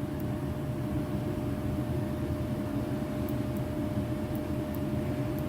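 Steady machinery hum: a low, even rumble with a constant mid-pitched whine over it, unchanging throughout.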